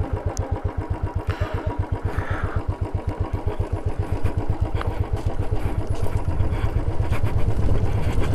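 Royal Enfield single-cylinder motorcycle engine running at low revs with a slow, even thump, quickening and getting louder from about six seconds in, while the bike rides a rough rocky dirt track. A few knocks and rattles come from the rough surface.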